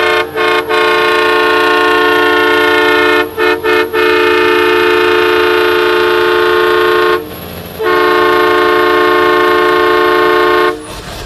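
A loud multi-tone air horn sounding a chord in long held blasts. It cuts out briefly twice near the start and three times in quick succession about three and a half seconds in, pauses for half a second about seven seconds in, then blows again and stops shortly before the end.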